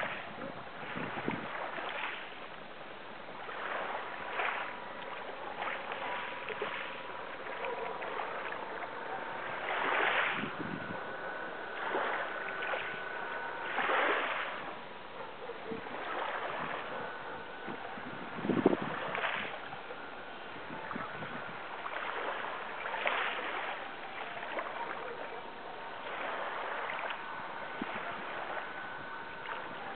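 Sea water splashing and sloshing in irregular surges every second or two, with a faint high hum coming and going underneath.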